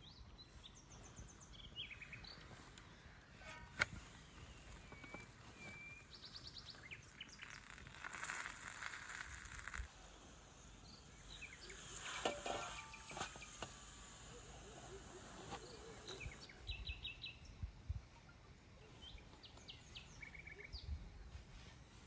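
Outdoor ambience with small birds chirping in short repeated trills, a sharp knock about four seconds in, and a few brief bursts of rustling noise.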